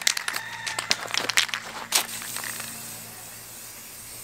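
Aerosol spray-paint can shaken, its mixing ball rattling in quick clicks for about two seconds, then a steady hiss as paint is sprayed onto a plastic crate.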